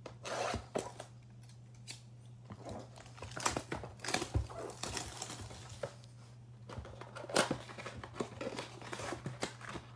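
Plastic shrink-wrap being slit and torn off a Donruss basketball trading-card box, with crinkling, scratching and small clicks as the cardboard box is handled and its flaps opened.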